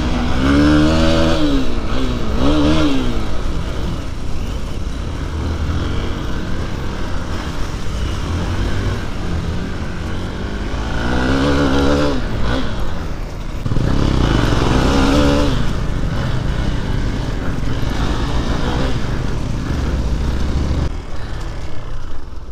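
Off-road motorcycle engine, most likely a Hero XPulse 200, running on a rough dirt trail. It revs up and down in several surges near the start and again from about eleven to fifteen seconds in, over a steady low rumble and the noise of riding.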